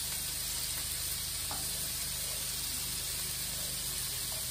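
Crumbled sausage meat sizzling steadily in olive oil in a frying pan.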